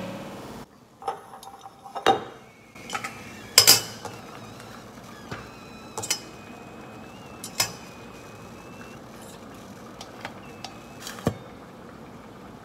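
Stainless steel cookware clattering on a stovetop: a pot lid and utensils clink and knock several times at uneven intervals, the loudest knock about three and a half seconds in, over a faint steady hiss.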